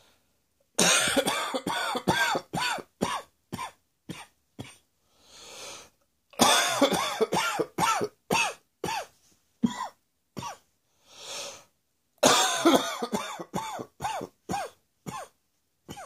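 A person coughing in three fits, each a quick run of coughs that grow shorter and further apart, with a long in-breath between fits. It is a morning cough on waking, which the uploader puts down to acid reflux.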